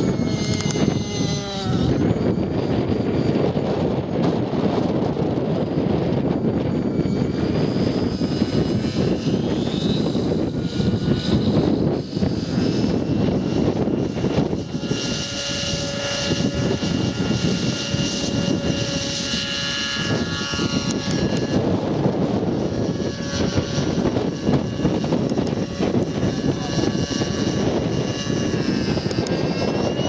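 Align T-Rex 600 nitro RC helicopter's two-stroke glow engine and rotors running in flight. The engine whine rises and falls in pitch as the helicopter maneuvers, and holds steady while it hovers low over the grass about halfway through.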